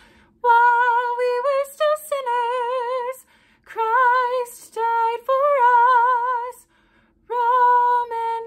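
A woman singing a simple melody solo and unaccompanied, in three phrases with short breaths between them and vibrato on the held notes.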